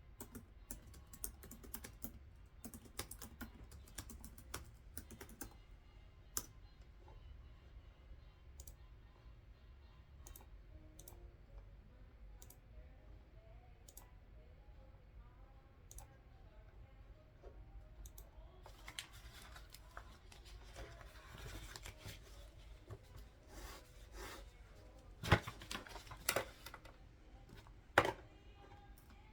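Typing and clicking on a computer keyboard at a desk: scattered light key clicks, with a stretch of rustling in the middle and a few louder knocks near the end.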